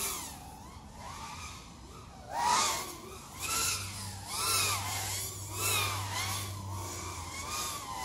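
FPV racing quadcopter's brushless motors whining as it flies, the pitch swooping up and down about five times as the throttle is punched and eased. The loudest swoop comes about two and a half seconds in.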